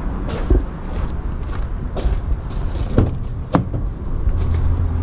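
A few sharp clicks and knocks over a steady low rumble, as the door of a Mercedes Sprinter van's cab is being opened.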